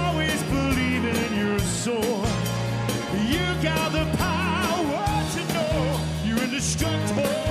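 Live pop-rock band playing, with a man singing the lead vocal into a microphone over steady bass and drums.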